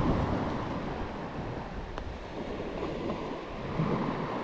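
Sea waves washing steadily, with wind noise on the microphone.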